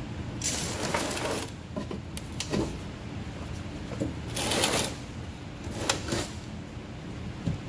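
Tool work on a van: three short bursts of rattling mechanical noise, the longest about a second, with clicks and knocks between them, over a steady low hum.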